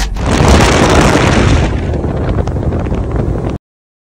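Loud wind buffeting and rushing on the microphone aboard a small open fishing boat, strongest in the first second and a half, cutting off suddenly about three and a half seconds in.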